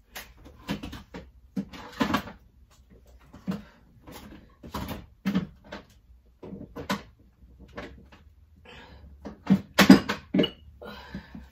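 Someone rummaging through kitchen cupboards: irregular knocks and clatters of containers being moved and cupboard doors opening and closing, with a louder cluster of knocks about ten seconds in.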